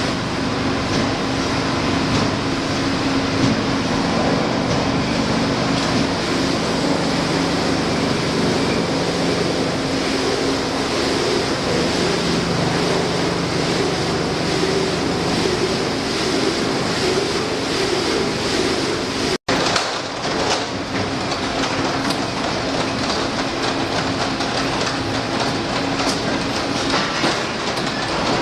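Veneer peeling line running: a steady, loud mechanical din of humming motors and rattling, clattering machinery. It breaks off for an instant about two-thirds of the way through and resumes.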